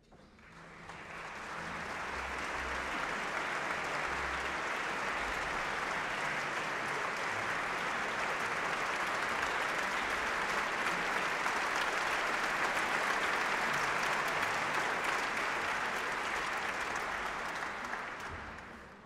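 Concert hall audience applauding, swelling over the first couple of seconds, holding steady, then dying away near the end.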